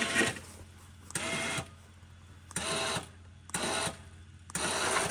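Electric winch motor jogged in short pulses, about one a second, each a brief mechanical buzz of about half a second. The winch is dragging the UTV toward the log instead of rolling the log.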